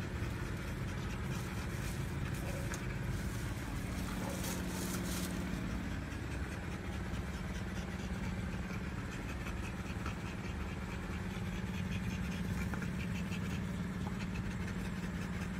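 A whelping mother dog panting steadily, with a constant low hum underneath.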